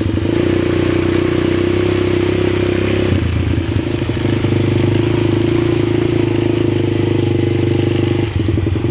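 ATV engine running steadily under way, its note shifting about three seconds in and dipping briefly near the end.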